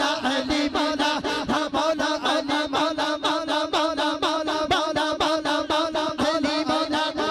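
Male voices chanting a devotional refrain through a PA system, in a fast, even pulse of about five beats a second over a steady held note.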